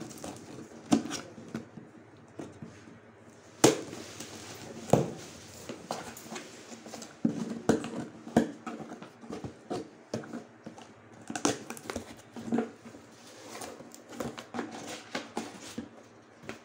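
A parcel being opened by hand: irregular rustling, tearing and sharp knocks of cardboard and packing, with the loudest knocks a few seconds in.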